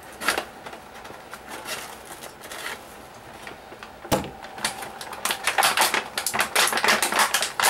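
Scissors snipping through plastic blister packaging, with the plastic clicking and crackling. There is a sharp click about four seconds in, then a quick run of clicks near the end.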